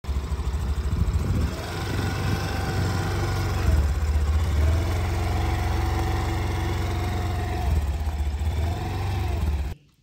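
Honda Scoopy scooter's engine running as the scooter rides along, a steady low rumble whose pitch rises and falls a little. It cuts off suddenly near the end.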